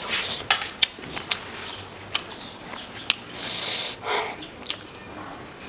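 Fingers squishing and mixing sauce-soaked rice on a banana leaf, with several sharp wet clicks and a brief hiss about three and a half seconds in.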